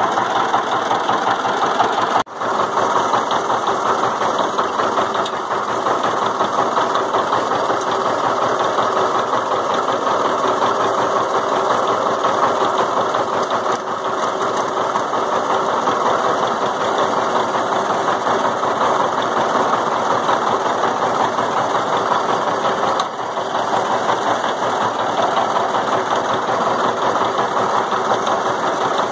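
A vehicle engine running steadily at an even speed, with a brief dropout about two seconds in.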